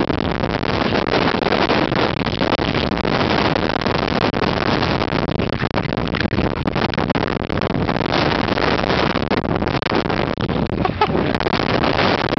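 Boeing 747 jet engines at takeoff thrust, a loud steady rush, with the jet blast buffeting the microphone.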